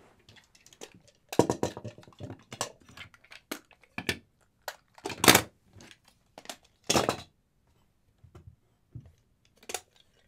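Snap-apart plastic toy vehicles being pulled to pieces by hand: an irregular series of plastic snaps and clacks as parts come off and knock on the table. The loudest clack comes about five seconds in.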